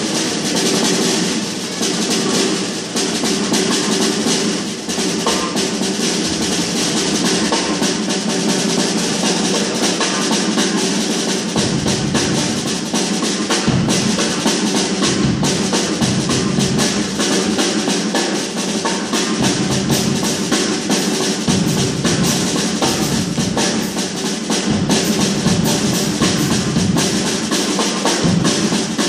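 Drum kit played solo: a dense run of fast strokes, with deep bass drum hits joining in from about twelve seconds in.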